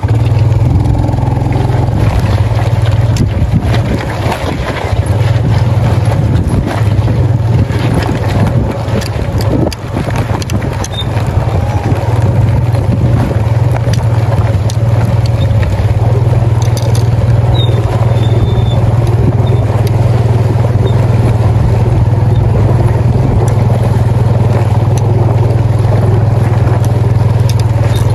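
Small Yamaha underbone motorcycle engine running steadily as the bike is ridden over loose river stones, with scattered clicks and crunches of the stones under the tyres.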